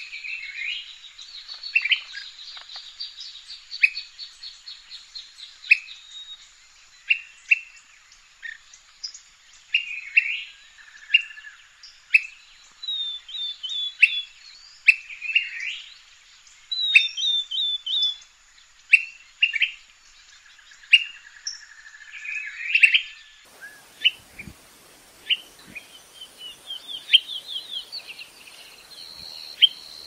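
Brown-crested flycatcher calling: short, sharp notes about once a second, mixed with rapid rolling trills. About two-thirds of the way through, the background turns hissier, with faint low thumps, as a second recording of the bird takes over.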